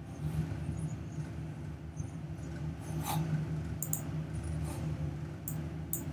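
Computer mouse clicks and keyboard keystrokes: a sharp click about three seconds in, then a few scattered key taps near the end, over a steady low hum.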